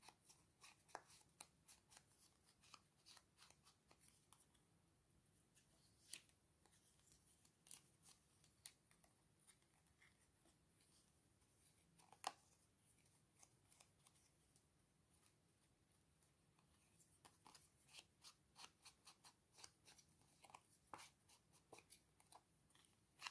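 Faint, soft scratching and dabbing of an ink pad or blending tool along paper edges as they are shaded with ink, in many small strokes, with a slightly louder tap about six seconds in and another about twelve seconds in.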